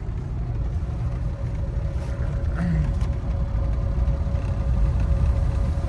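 Maruti 800 driving, heard from inside the cabin: a steady low rumble of engine and road noise with a faint steady whine over it.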